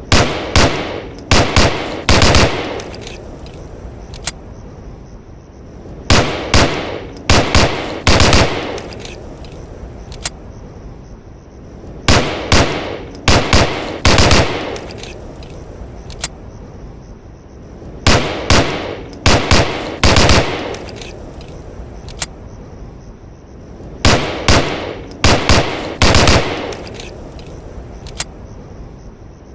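M1911A1 .45 pistol firing in five quick strings of several shots each, one string about every six seconds, each shot ringing out with an echo.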